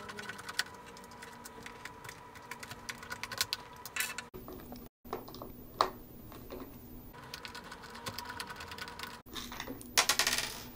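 Rapid light clicks and taps of a small Phillips screwdriver and plastic parts as screws are backed out of a Dyson V8 stick vacuum's plastic casing, broken by a few short gaps.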